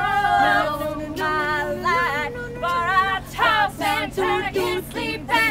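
All-female a cappella group singing in harmony, several voices holding and sliding between notes, then breaking into quick short repeated syllables about three seconds in.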